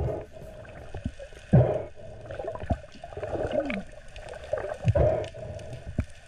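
Underwater sound as heard through a diver's camera housing: gurgling, moving water with dull low thuds every second or two and a few short wavering pitch sweeps.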